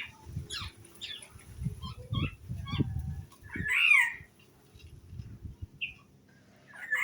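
Songbirds calling: a run of short chirps, then a loud harsh squawk that falls in pitch about three and a half seconds in, with soft low thumps beneath.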